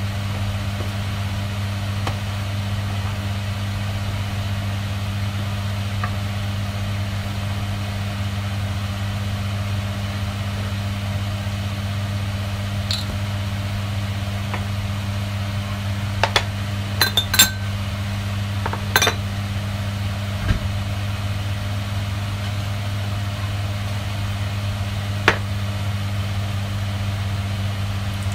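A steady low hum, with a few light clinks a little past the middle and one more near the end.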